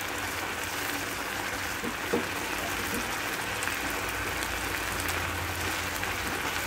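Thick milk-and-sugar mixture sizzling and bubbling steadily in a kadai over a full gas flame as it cooks down into milk cake, with one brief knock about two seconds in.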